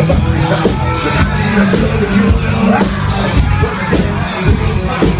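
Live cover band playing rock music, with drums and bass loud in the mix.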